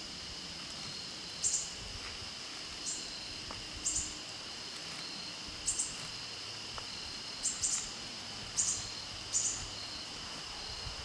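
Knife blade shaving curls off a stick to make a feather stick: short scraping strokes every one to two seconds. Behind them a steady high drone of insects.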